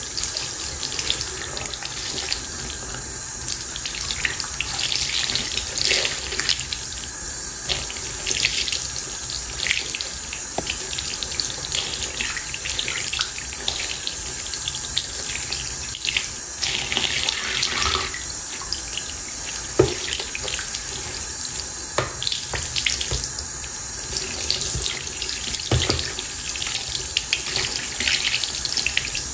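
Bathroom sink faucet running steadily, the stream splashing over hands and a doll's wet hair being rinsed under it, with brief irregular splashes.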